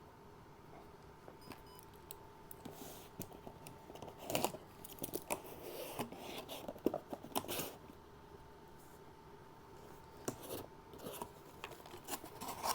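Scissors and hands opening a cardboard box of packed parts: scattered snips, clicks and rustles of cardboard and plastic wrapping, coming in clusters, over a faint steady tone.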